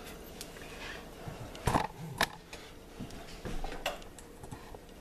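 Chopped onion and celery being scraped and gathered together on a cutting board with a knife and hand: light taps and clicks, with two sharper knocks about two seconds in.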